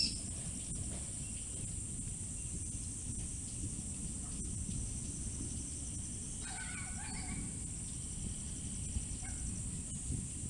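Steady low wind rumble on the microphone under a constant high hiss, with a single bird call about six and a half seconds in. A sharp click sounds right at the start.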